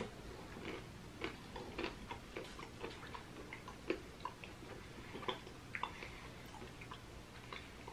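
Faint, irregular wet clicks and smacks of a person chewing a candy bar, several a second at uneven intervals, over a faint steady low hum.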